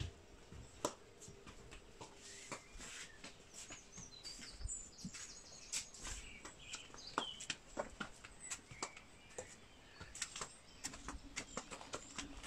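Faint bird chirps over scattered clicks and knocks.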